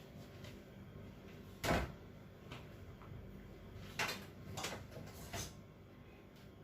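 A spoon knocking and scraping against a cooking pot as cooked rice is spooned on as the top layer of a biryani: about five short clatters, the loudest about two seconds in.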